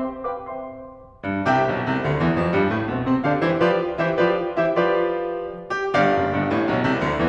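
Background piano music. The playing dies away, and a new passage begins abruptly just over a second in.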